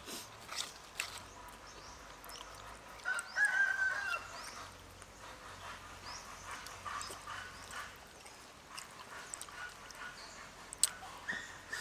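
Close-up eating sounds: chewing and a knife tapping and slicing raw meat on a wooden chopping board, with small scattered clicks. About three seconds in, a high, wavering animal call lasting about a second, the loudest sound.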